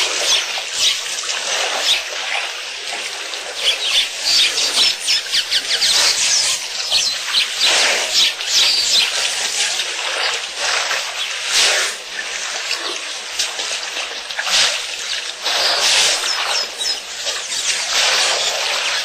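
Water splashing and dribbling as elephants stir and draw it up with their trunks, in a dense run of irregular small splashes.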